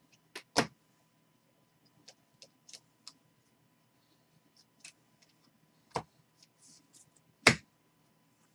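Baseball cards being sorted by hand: scattered short clicks and taps of cards against each other and the stack. Two sharper taps stand out, about half a second in and near the end, with fainter ticks between.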